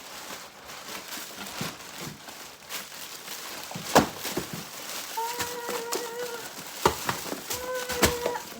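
Plastic mailer bag crinkling and rustling as it is torn open and handled, with a few sharp knocks. In the second half a steady pitched tone sounds twice, about a second each time.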